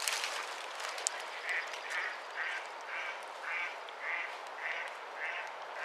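A duck quacking in an even series, about two calls a second, starting about a second and a half in. There is a light click about a second in.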